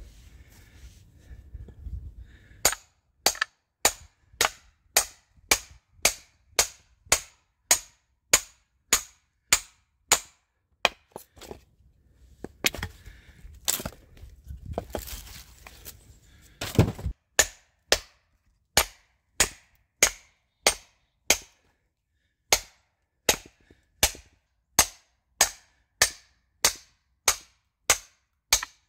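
Wood being chopped with an axe: a steady rhythm of sharp strikes, a little under two a second. The strikes break off for a few seconds around the middle for a heavier thud, then carry on.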